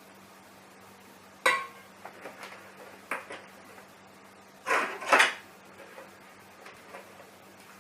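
Kitchenware clinking and knocking while a latte is finished: a sharp clink that rings briefly about a second and a half in, a few lighter knocks, then two louder clatters close together around five seconds in.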